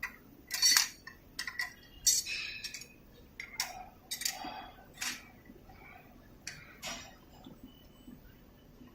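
Automatic fan-grill frame welding machine at work: irregular sharp metallic clicks and clinks of steel wire and fixtures, some with a short ring, the loudest in the first couple of seconds.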